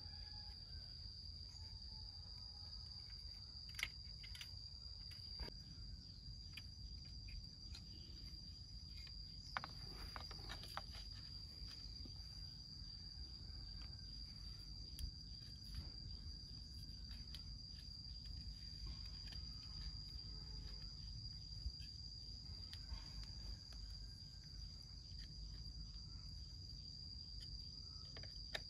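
A steady high-pitched insect drone, with occasional light knocks and clicks from bamboo poles being handled and fitted together.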